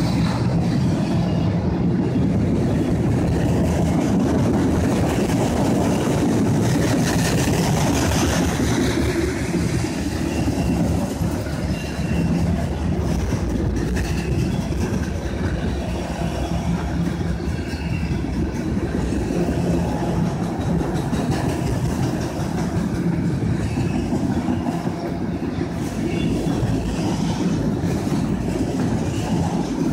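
CSX autorack freight train rolling past, with a steady, loud noise of steel wheels running on the rails.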